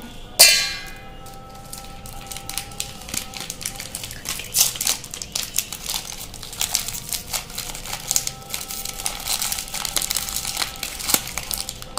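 Biscuits being snapped by hand and dropped into a stainless-steel mixer-grinder jar. There is a ringing metal clang about half a second in, then a run of crisp cracks, crunches and clicks as the pieces break and land in the jar.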